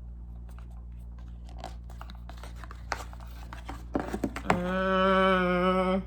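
McDonald's food packaging crinkling and rustling as the burger is handled, with scattered clicks. About four and a half seconds in comes the loudest sound: one long, even-pitched sound from the eater's throat lasting about a second and a half, which stops abruptly.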